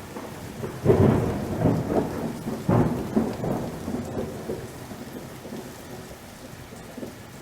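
Thunderstorm: steady rain with thunder cracking and rumbling, loudest about a second in and again near three seconds, then fading to rain alone.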